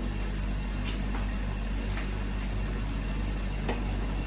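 Steady low hum with an even hiss under it and a few faint clicks: kitchen background noise.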